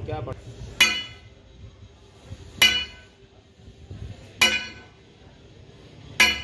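Sledgehammer striking a steel bar held against the end of a hydraulic cylinder jack: four loud, ringing metal-on-metal clangs, evenly spaced a little under two seconds apart.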